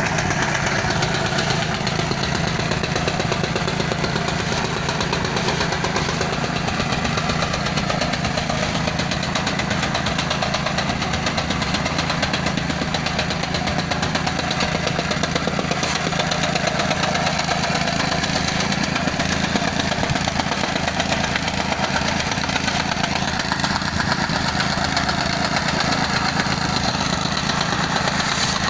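A small engine running steadily at an even speed, with a fast, even pulse.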